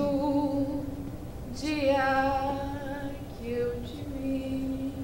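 A woman singing a slow melody in long held notes: two long phrases, then a few shorter lower notes near the end.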